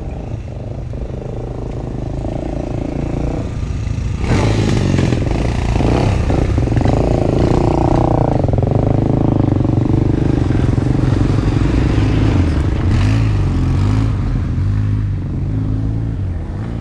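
A string of about ten ATVs (four-wheelers) passing one after another, their engines running and revving with shifting pitch. They are loudest from about four seconds in and ease off near the end.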